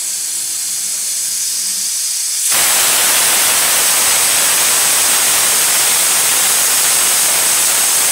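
Aluminium pressure cooker's weight valve letting off steam: a steady hiss that about two and a half seconds in suddenly turns much louder into a full steam rush as the weight lifts. This is the cooker's final whistle at full pressure, brought on by turning the gas up.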